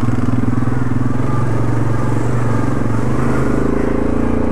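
Yamaha ATV's single-cylinder four-stroke engine running steadily on a slick, muddy trail, its note changing about three seconds in.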